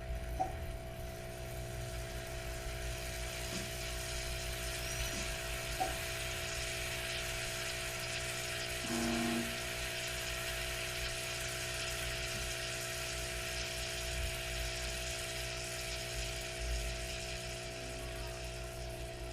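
Espresso machine's pump humming steadily while it brews, with a hiss of liquid over it. A short tone sounds about nine seconds in.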